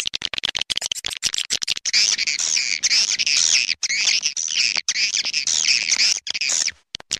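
Swiftlet calling-sound recording, the kind played to lure swiftlets into a nesting house: a fast run of clicks, joined about two seconds in by dense, high-pitched twittering chatter. It breaks off briefly near the end.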